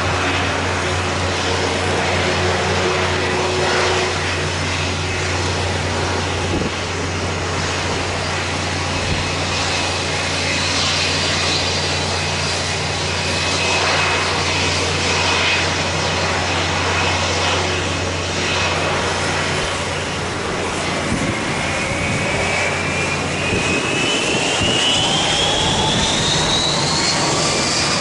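Jet airliner engines running with a steady low drone under a rushing noise. About three-quarters of the way through, a whine starts rising steadily in pitch as the engines spool up.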